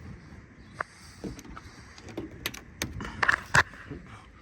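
Plastic retaining clips popping and snapping as the Dodge Caravan's rear trim panel is pulled off by hand: several sharp clicks with plastic rustling between them, the loudest about three and a half seconds in.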